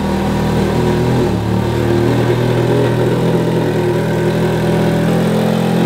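Ferrari 360's V8 engine running steadily at low revs.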